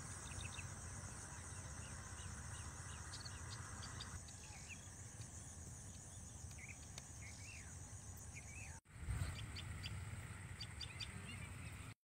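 Faint field ambience: small birds chirping and calling over a steady high insect buzz. The sound cuts out briefly about nine seconds in.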